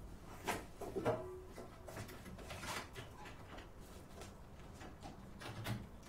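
A few soft knocks and clatters of things being handled and moved in a small room: one about half a second in, two close together around a second in, and a louder bump near the end.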